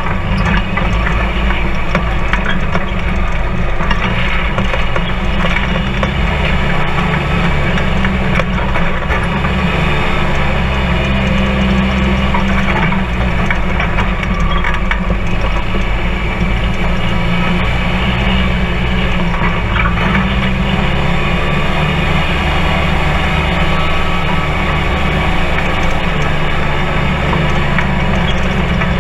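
Polaris RZR 4 side-by-side driving steadily along a dirt trail, heard from inside the open cab. The engine and drivetrain run at a steady drone, with scattered knocks and rattles from the chassis and tyres over the rough ground.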